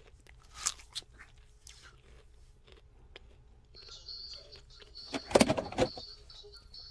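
Eating sounds at a black bowl of spicy seafood noodle soup: scattered small mouth and utensil clicks as the bowl is raised, then a louder clatter a little after five seconds as the bowl and chopsticks are handled. A faint steady high-pitched tone joins from about four seconds in.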